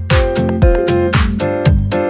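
Background electronic dance music with a steady kick-drum beat and sustained synth chords.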